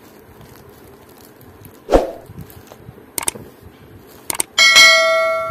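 A thump about two seconds in, then a few clicks and a bright electronic bell chime that rings out and fades near the end: the click-and-ding sound effect of an animated YouTube subscribe button.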